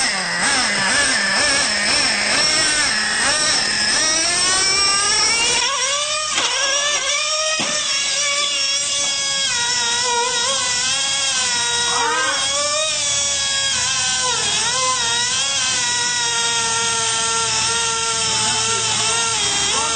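Traxxas Revo 3.3 nitro RC truck's small two-stroke glow engine running and revving up and down. About six seconds in it settles into a steadier buzz, broken by short revs twice later on.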